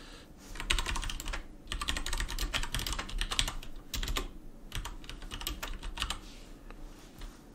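Typing on a computer keyboard: quick runs of key clicks broken by short pauses, dying away in the last second or so.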